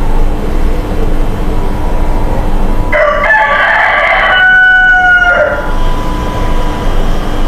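A rooster crows once, starting about three seconds in and lasting about two and a half seconds, over a steady low rumbling background noise.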